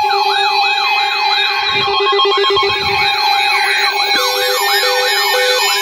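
Emergency alert tones for a Special Marine Warning: a siren-like yelp rising and falling about three times a second over steady tones. About four seconds in, an on-off beeping joins, about two beeps a second.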